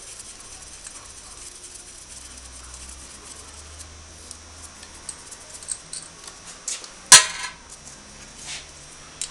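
Small metallic clicks and clinks of hand tools and parts being worked at the open cylinder head of a Suzuki ST250 E-type's single-cylinder engine, with one loud metal clank about seven seconds in and a softer one a second later.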